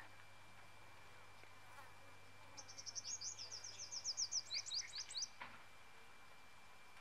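A bird's rapid trill of short, high, sweeping notes, about seven or eight a second, lasting a few seconds and dipping lower near its end. It sounds over a faint steady thin high tone of outdoor ambience.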